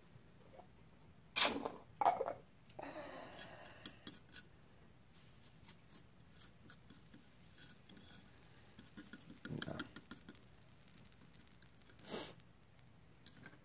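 Small metal pieces and tools handled on a jeweller's workbench: two sharp knocks about a second and a half and two seconds in, a short scraping, then scattered light clicks and a couple of duller thumps.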